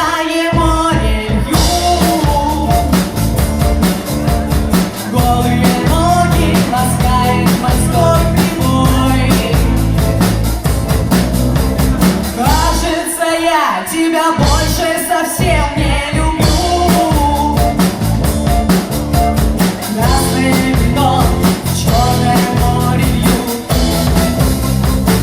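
Rock band playing live, with a drum kit keeping a fast, steady beat. About halfway through, the bass and drums drop out for about a second, then the full band comes back in.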